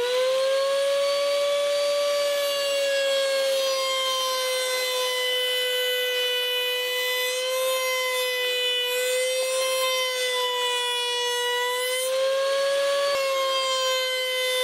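Router mounted under a router table, running at full speed with a steady high whine. It is still rising into pitch at the very start. Its note sags slightly a few times as a strip of acrylic is fed across the tilted bit to cut a 45-degree mitre.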